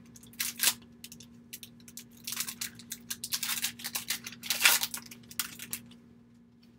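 Baseball trading cards being handled: a stack of card stock rustling, sliding and flicking in a run of short bursts.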